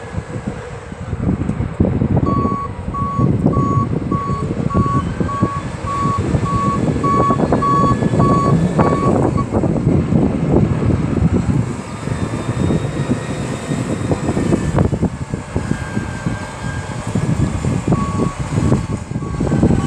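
Case Magnum 380 tractor working under load with its engine running steadily, while a reversing alarm beeps at about two beeps a second from about two seconds in to about nine seconds, and again near the end.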